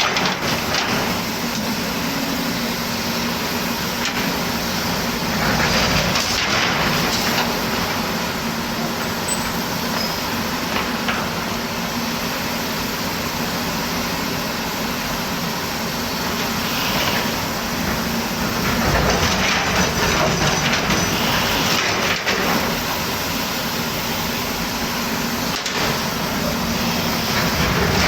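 Volvo excavator's diesel engine running steadily while it digs, with several louder noisy stretches of the machine working.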